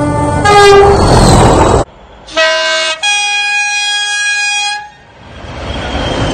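Diesel locomotive two-tone horns sounding as the locomotives run through a station. First a low note then a higher note over loud running noise, cut off abruptly. Then another locomotive gives a short low-high pair and one long high note, and its running noise swells as it passes close.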